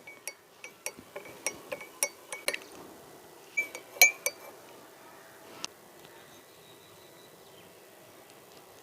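Spoon stirring honey into a cup of kahwa, clinking quickly against the sides of the cup for the first two and a half seconds, a few more clinks around four seconds in, then it goes quiet.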